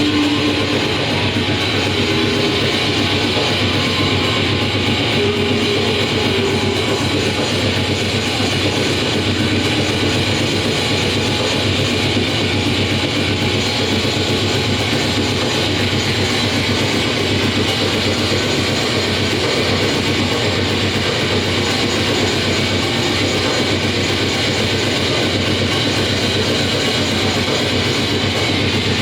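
Live harsh noise music: a dense, unbroken wall of noise at a steady loudness, with a few faint held tones low down in the first several seconds.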